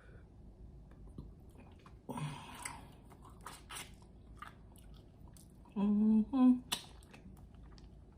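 Close-miked chewing and biting of fried chicken wings, wet mouth clicks with a louder bite about two seconds in. Near six seconds, two short hummed voice sounds.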